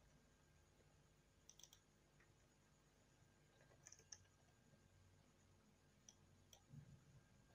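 Near silence with a few faint, sharp clicks of a computer keyboard and mouse, in small groups about a second and a half in, around four seconds in, and twice near the end.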